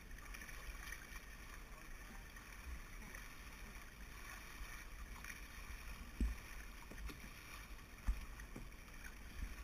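Canoe moving on a fast river: water swishing and rushing past the hull under a low rumble, with a few soft knocks in the second half.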